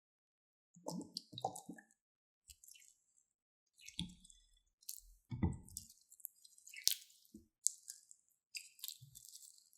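Crunchy slime being squished and worked: irregular wet squelches mixed with crackling, starting a little under a second in.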